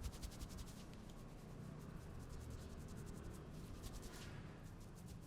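Fingers rubbing and scratching through hair on the scalp during a head massage: a faint, even, scratchy rustle of many quick strokes.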